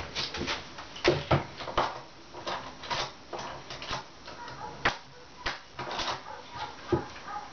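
Irregular clicks and knocks from hand work on balcony floor joists, as timber and fixing parts are handled and set in place.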